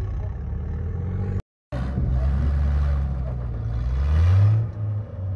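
An off-road rock crawler's engine running at low speed, revved up briefly about four seconds in. The sound drops out completely for a moment about a second and a half in.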